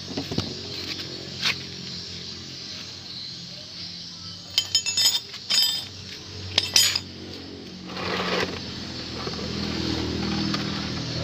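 Small metal parts and tools clinking and clattering in several quick bursts, followed by a short hiss.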